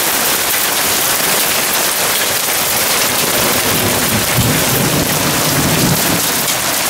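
Hail and heavy rain hitting a wooden deck and a metal barbecue lid, a dense steady hiss. A low rumble rises under it about four seconds in and fades about two seconds later.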